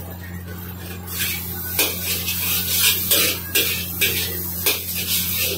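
Noodles sizzling in a hot wok as they are tossed and turned with metal tongs: from about a second in, bursts of sizzling and tong scrapes come every half second or so, over a steady low hum.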